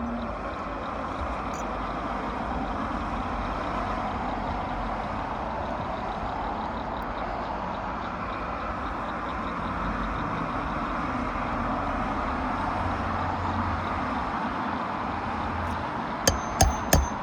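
Steady vehicle engine noise throughout, then near the end three sharp hammer blows in quick succession, about a third of a second apart, driving a roofing nail back into an asphalt shingle.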